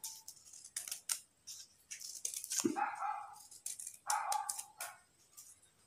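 Scissors snipping through folded paper: a run of short, crisp cuts, with two longer, louder sounds about three and four and a half seconds in.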